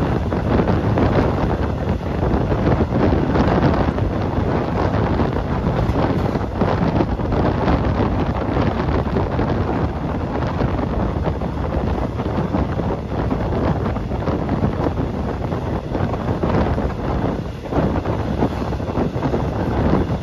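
Wind buffeting the phone's microphone: a steady, heavy rushing noise.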